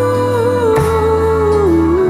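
Background music from a slow song: a long held melody note that steps down in pitch near the end, over a steady low bass.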